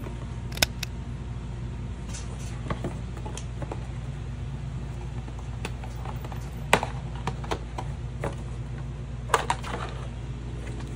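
A paper gift bag and a cardboard box being handled on a desk: soft rustling with scattered sharp taps and knocks, the loudest about half a second in, near seven seconds and near nine and a half seconds, over a steady low hum.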